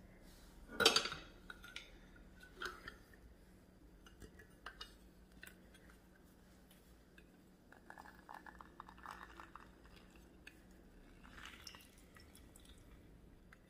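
Quiet kitchen handling: a sharp knock about a second in, a few small clicks, then a second or so of rapid crackling and dripping as a lime is squeezed in a hand-held citrus press over a blender jar.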